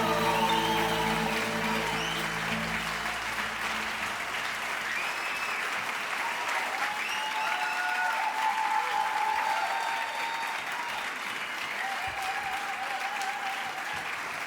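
Audience applauding at the end of a live Arabic song, while the ensemble's last held note dies away over the first three seconds.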